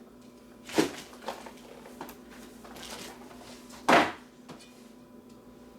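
Cardboard box of a keyboard being handled and opened: two sharp knocks about three seconds apart, with lighter clicks and a brief scraping slide between them, over a faint steady hum.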